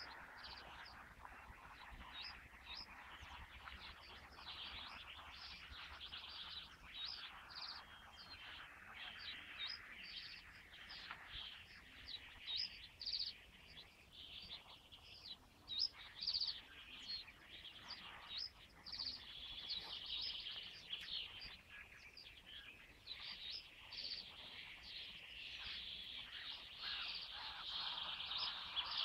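A dense chorus of many songbirds chirping and calling over one another without a break: a loud, many-voiced bird din.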